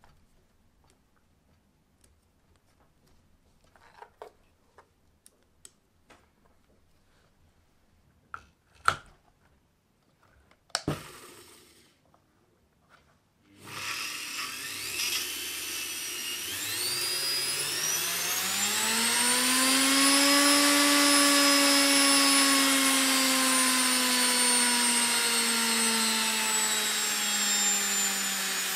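Washing-machine motor run through a speed controller: it starts about halfway through, its whine climbs in pitch as the knob is turned up, then holds at speed, sagging slowly, over a steady hiss. Before it starts there are light clicks and a couple of sharper knocks as the wires and plug are handled.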